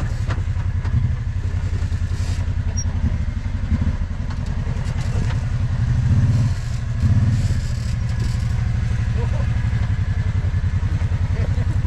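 Kawasaki side-by-side's engine running at low revs as it crawls over rock, with two short throttle surges about six and seven seconds in.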